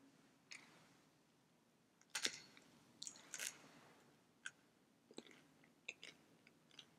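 Near silence broken by a scatter of faint clicks and small handling noises, the loudest a little over two seconds in and around three and a half seconds in: the priest handling the altar vessels as he takes communion.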